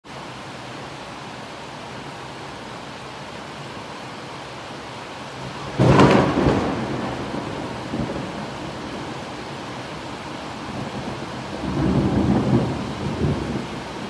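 Rain falling steadily, then a sudden thunderclap a little before halfway that rolls off into rumbling thunder. A second swell of rumbling comes near the end.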